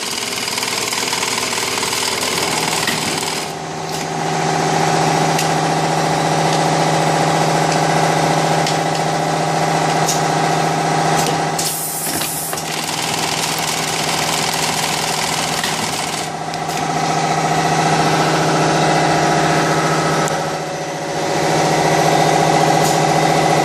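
Flap disc making machine running: a steady mechanical hum with a few steady tones, easing off briefly about four times between working stretches.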